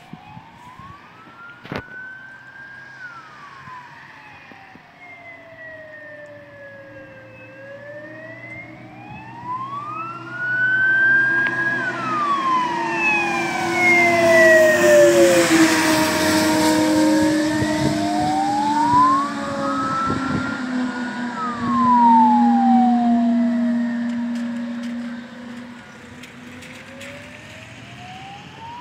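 Fire engine siren in a slow wail, rising and falling about every nine seconds. It grows loud as the truck drives past around the middle, with its engine note and tyre hiss on the wet road, then fades.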